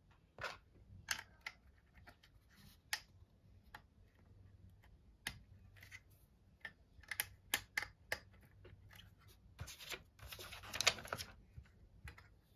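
Plastic Lego bricks clicking and rattling as pieces are picked from a pile and handled on a table, in scattered sharp clicks, with a longer rustling rattle about ten seconds in.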